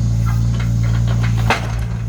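A machine running with a steady low hum, with scattered light clicks and a single sharp knock about one and a half seconds in, after which the hum drops slightly.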